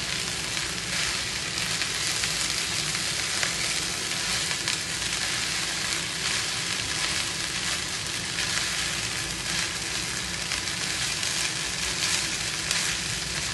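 Boiled rice with grated raw mango and melting butter sizzling steadily in a nonstick frying pan, stirred and turned over with a silicone spatula.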